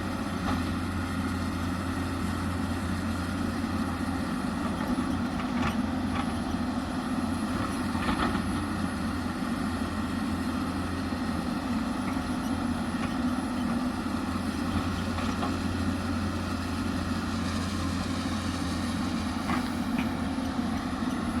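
Hyundai 220 excavator's diesel engine running steadily, with a few faint knocks now and then.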